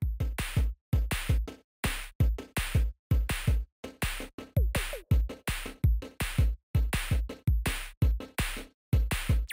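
Electronic background music with a steady drum-machine beat, about two hits a second over a deep bass.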